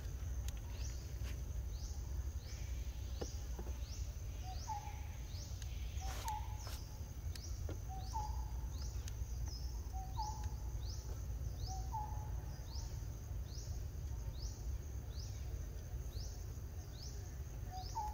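Forest ambience of insect and bird calls: a high, rising chirp repeated about once a second, and a lower two-part call about every two seconds from about four seconds in to about twelve seconds, returning near the end, over a steady low rumble.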